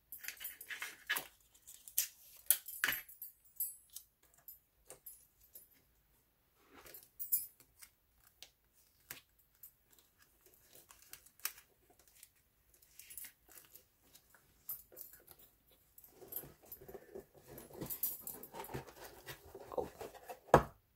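Hands handling a cardboard box and paper, with scattered rustles, light taps and small clicks, and the metal bangles on the wrist clinking now and then. Near the end there is a denser stretch of rubbing and rustling as the box is handled, then one sharp knock.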